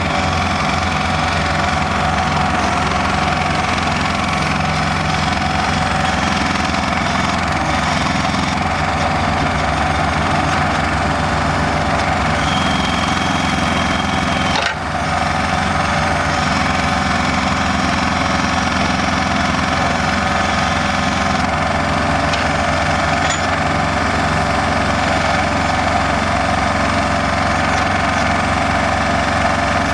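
Engine of a solar pile driving machine running steadily, with a brief drop in level about halfway through.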